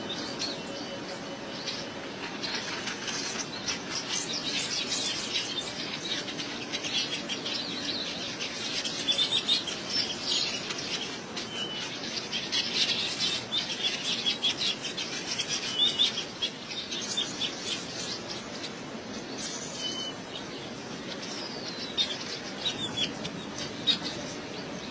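Many small birds chirping in quick, overlapping calls, busiest through the first two-thirds and thinning out towards the end.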